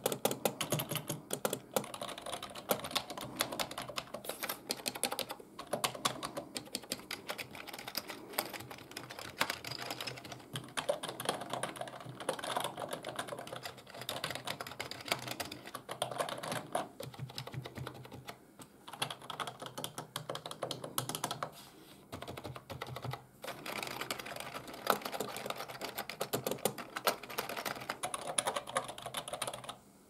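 Fast typing on a Cherry G83-6105 (RS 6000 M) membrane keyboard and on a second full-size keyboard beside it: a dense run of key clicks with a few short pauses.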